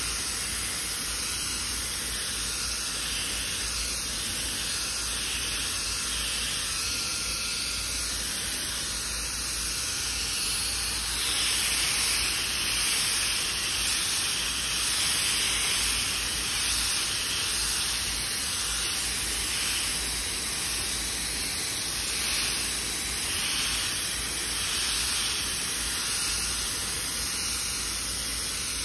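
Pneumatic mini polisher with a foam pad running steadily while buffing fresh car paint, a constant hiss of air through the tool. It gets a little louder and brighter for a few seconds near the middle.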